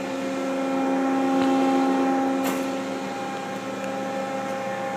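Steady mechanical hum with an even set of tones, swelling a little about a second in, and a single sharp click about two and a half seconds in.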